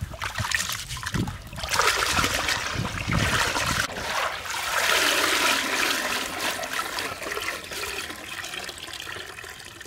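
Rice being washed by hand in a woven bamboo basket sitting in a steel basin of water, sloshing and splashing. About four seconds in, the basket is lifted out and water pours through the weave back into the basin, the rush of water slowly fading toward a trickle.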